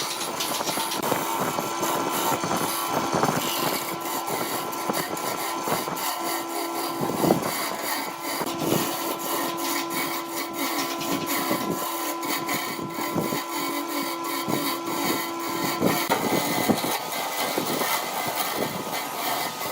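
Wood lathe running, with a turning tool scraping and cutting the spinning wood in many short strokes over a steady motor hum. The hum's lower tone stops about sixteen seconds in.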